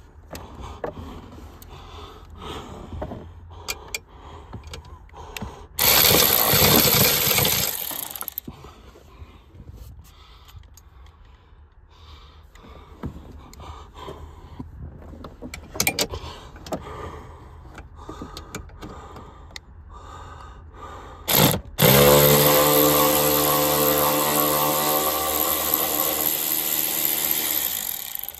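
Hand ratchet with an extension clicking in short spells as an airbag mounting bolt is loosened. A loud rush of noise comes about six seconds in. Over the last six seconds a loud engine drone runs, its pitch slowly easing down.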